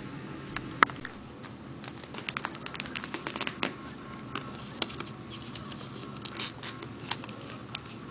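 Handling noise: irregular crackles and clicks, with one sharp click about a second in and a denser run of crackling through the middle and latter part.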